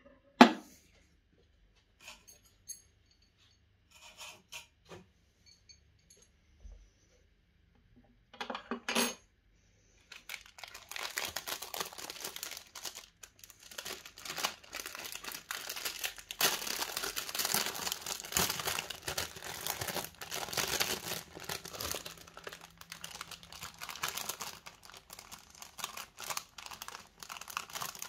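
Hard black mounting parts of a CPU cooler set down on a tabletop with a few scattered knocks and clicks, the loudest just after the start. From about ten seconds in, a clear plastic accessory bag crinkles continuously as it is handled.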